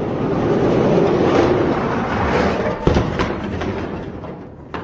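Die-cast Hot Wheels monster trucks rolling down a plastic track, a steady rattling rumble that swells and then fades, with two sharp knocks about three seconds in as the trucks crash.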